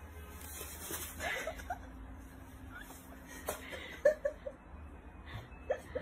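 Soft human chuckling in short bursts, a couple about a second in and a run of three near four seconds in, with a single knock between them.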